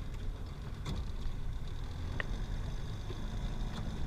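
Small boat outboard motor idling with a steady low rumble, with a few light clicks as the wire-and-mesh crab pot is handled.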